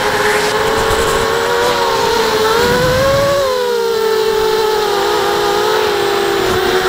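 Racing quadcopter's electric motors and propellers whining loudly, heard from the camera mounted on the drone. The pitch rises to a peak about three seconds in, then falls back and settles.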